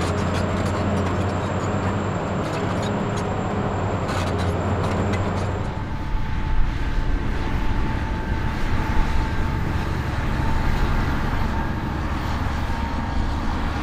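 Large crawler bulldozer's diesel engine running steadily under load, with a low hum and a few sharp clicks. About six seconds in, the sound switches to a loaded coal-hauling truck driving by, a rumbling engine drone with a faint steady whine.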